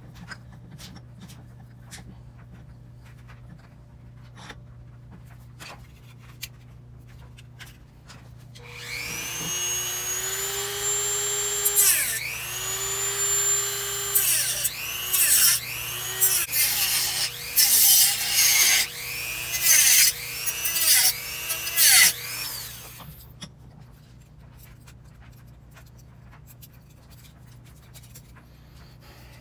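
Handheld rotary tool with a cutoff wheel spinning up to a high whine and cutting a plastic part. After two steady runs it cuts in short bursts about once a second, its pitch sagging each time the wheel bites. Light handling clicks come before and after.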